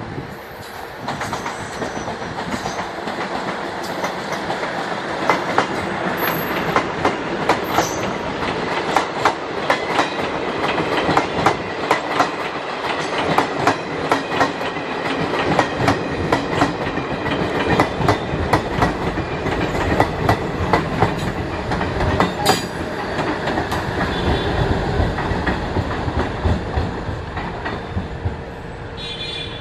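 Diesel-electric multiple unit (DEMU) passenger train passing, its wheels clattering in a rapid run of clacks over rail joints and points, with a steady running tone beneath.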